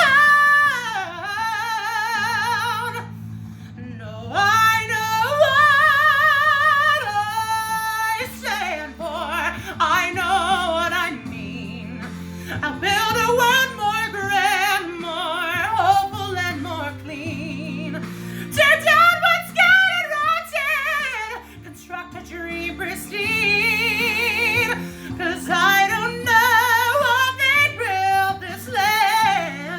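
A woman singing a musical-theatre song over accompaniment, with long held notes sung with a wide vibrato and short pauses between phrases.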